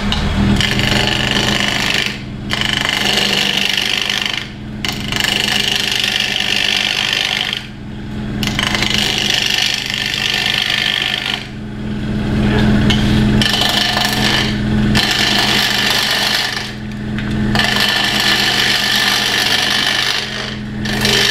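Wood lathe motor humming steadily while a hand-held steel turning tool cuts the spinning wooden sphere, taking the bulk of the waste off to bring it round. The cutting comes in passes of a few seconds with short breaks between them.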